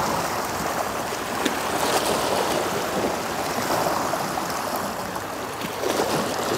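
Small sea waves washing and splashing against a rocky outcrop at the shoreline, a steady watery rush that swells and eases.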